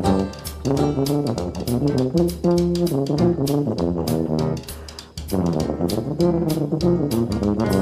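Background music: upbeat jazz with brass and a drum kit, keeping a steady beat, with a short dip about five seconds in.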